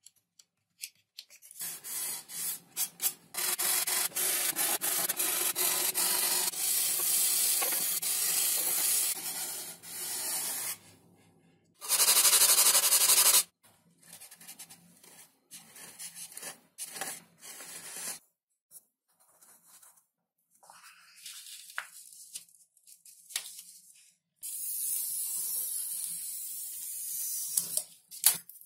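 Hand sanding: sandpaper scraping back and forth in long runs. A short, loud, steady hiss comes about twelve seconds in, and softer scattered rubs and scrapes follow before another run of sanding near the end.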